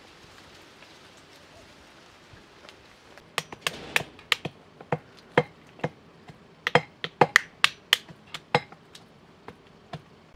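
Sharp, irregular knocks, several a second, from about three seconds in until near the end: walnut shells being cracked open and a brass pestle pounding in a brass mortar.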